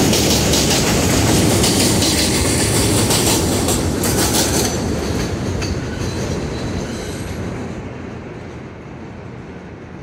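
R143 subway train pulling away on elevated track: wheels clacking over rail joints and squealing, with the train noise fading from about five seconds in as it draws off.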